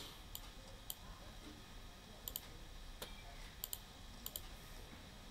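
Faint computer mouse clicks: scattered single clicks and a few quick double clicks.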